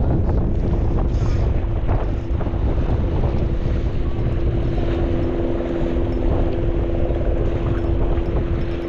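Wind buffeting the microphone with heavy low rumble, over a steady unchanging hum.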